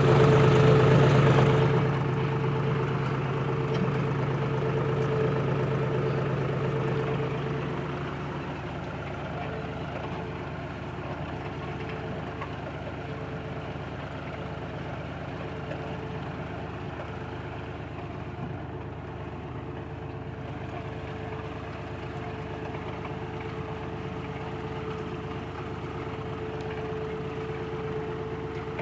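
Tractor engine running steadily, loud at first and fading over the first several seconds, then holding steady.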